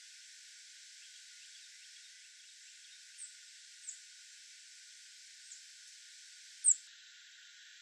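A small songbird giving four short, high chirps in the second half, each slurring downward, the last much the loudest, over a faint steady outdoor hiss.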